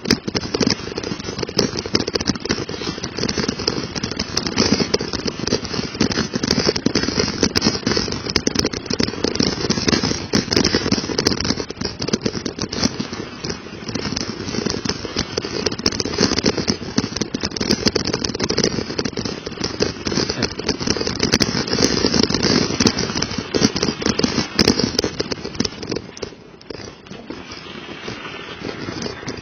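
Continuous dense crackling and rattling of a mountain bike's Michelin tyres rolling over icy slush and wet leaves, picked up close by a small action camera on the moving bike. It eases somewhat near the end.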